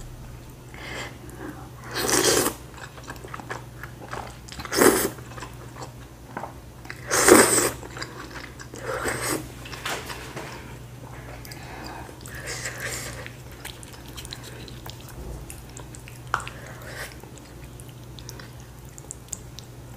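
A person eating chicken noodles: three loud slurps in the first eight seconds, then quieter chewing and mouth noises.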